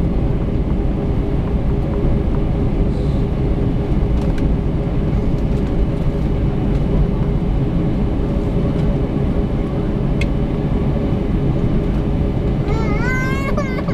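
Airliner cabin noise during taxi: a steady low rumble of the engines with a constant hum and rolling noise, heard from inside the cabin. Near the end, a short voice rises and falls briefly.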